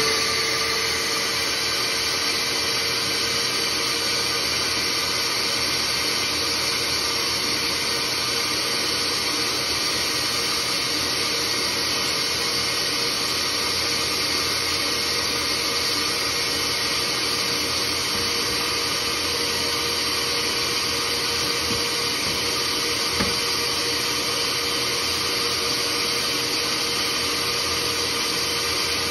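Vacuum cleaner running steadily, a constant rushing hiss with one held whine, pulling suction through a vacuum seeder plate to draw pelleted seeds down into its holes.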